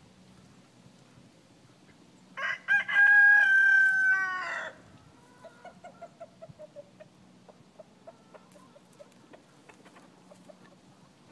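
A rooster crows once, about two seconds in, one loud call lasting about two seconds that drops in pitch at the end. After it, a chicken gives a quiet run of short clucks falling in pitch.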